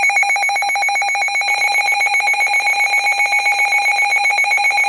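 Emergency Alert System attention signal: a steady, harsh two-tone alarm, sounded to announce that an emergency alert message is about to follow.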